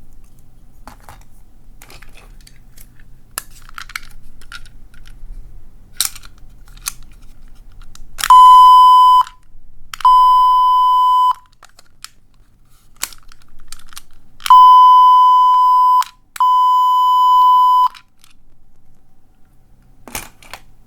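Small electronic sound toy from a capsule machine sounding four steady, loud electronic beeps, each a second or more long, in two pairs, the second pair about six seconds after the first. Light clicks of handling come between.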